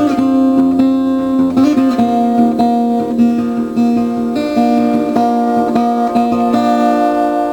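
Intro music: acoustic guitar picking a steady run of plucked notes.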